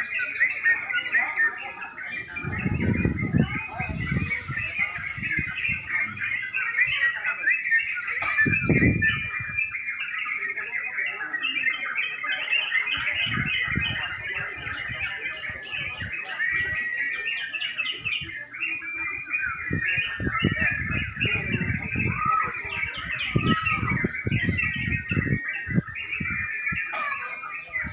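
Many caged songbirds singing at once in a contest round, a dense unbroken chorus of quick chirps and whistles, with people's voices rising under it now and then.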